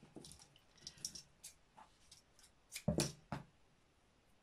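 Hands handling embroidery thread and scissors on a craft table: light rustles and small clicks, with two louder knocks about three seconds in.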